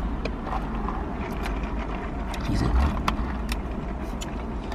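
Car driving: a steady low engine and road rumble, with scattered light clicks.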